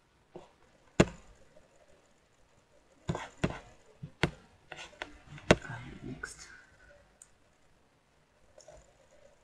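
Computer mouse clicking: a handful of sharp clicks at irregular intervals, the loudest about a second in and at about five and a half seconds.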